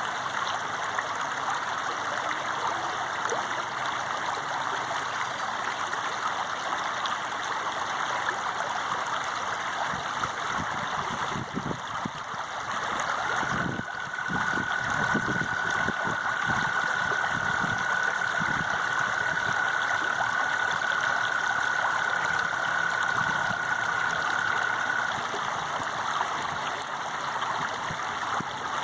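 Water flowing steadily, a continuous rushing like a stream. From about a third of the way in to near the end, a steady high tone sounds over the water, with an irregular low rumble around the same stretch.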